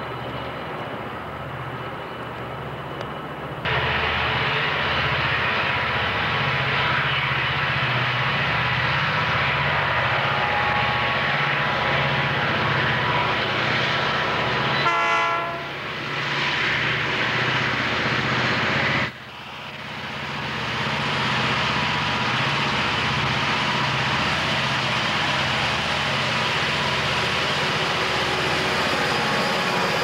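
Southern Pacific diesel freight locomotives climbing the grade, with a steady heavy engine rumble that grows suddenly louder a few seconds in as they approach. A short horn blast sounds about halfway through. The sound drops away abruptly about two-thirds of the way in, then builds again as the locomotives pass close by.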